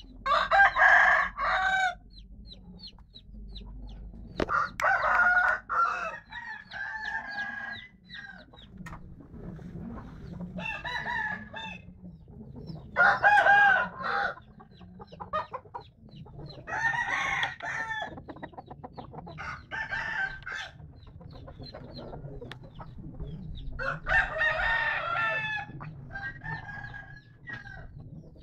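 Fighting-cock roosters crowing again and again, about eight crows spread through the stretch, some overlapping as different birds answer one another.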